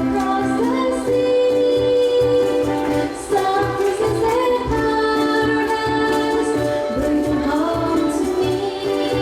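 Ukulele ensemble playing with voices singing together, long held notes over a steady beat of about two pulses a second.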